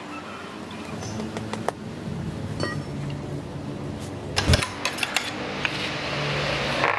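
Clinks and knocks from used truck tires and metal tools being handled, with a burst of several sharp knocks about four and a half seconds in. A steady hiss comes in near the end.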